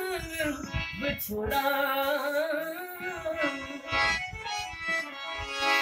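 Harmonium playing a melodic passage of a Punjabi folk song, with no words sung.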